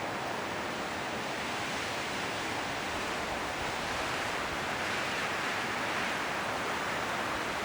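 Strong wind blowing through a forest of autumn trees, the leaves rustling in a steady rushing hiss that swells slightly as a gust builds about five seconds in.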